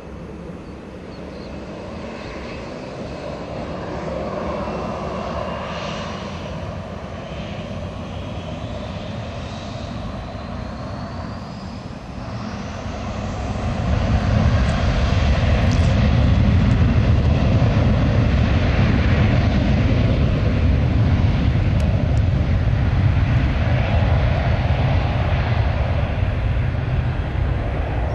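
Boeing 737-800 jet engines whining, with a whistling tone that climbs steadily in pitch. About 13 seconds in they spool up to takeoff thrust, and a loud, deep rumble takes over and holds steady as the jet accelerates down the runway.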